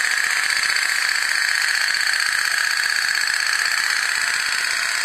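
Aluminium otok-otok (pop-pop) steam boat toy running, its boiler heated by a cooking-oil wick flame, making a rapid, steady tok-tok-tok rattle as its thin metal diaphragm flexes with each pulse of steam.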